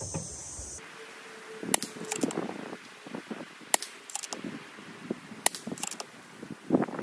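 Shrouded FX Impact M3 PCP air rifle firing pellets, each shot a short, sharp crack, about two seconds apart, with softer mechanical clunks between.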